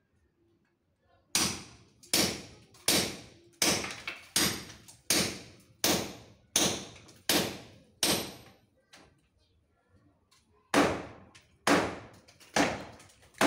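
Hammer striking a chisel to break up a plastered brick wall. About ten evenly spaced blows, a little more than one a second, each ringing briefly, then a pause and four more blows.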